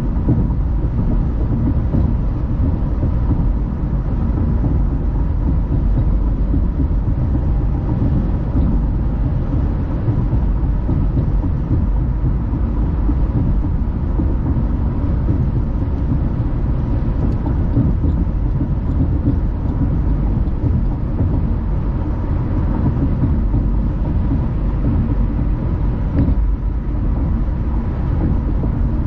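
Steady driving noise of a car on the road: a low, even rumble of tyres and engine that keeps on without change.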